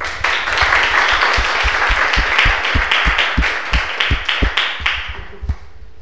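An audience applauding, the clapping dying away about five and a half seconds in.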